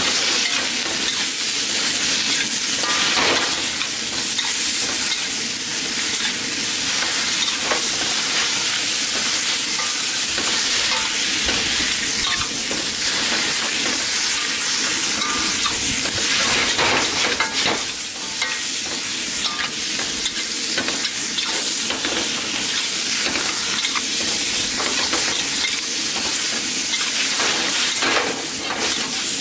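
Mixed vegetables sizzling in a hot wok as they are stir-fried, with a steady hiss and many scattered clicks and scrapes of the utensil tossing them against the wok.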